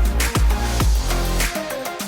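Electronic dance music with heavy, sweeping bass drops on a steady beat.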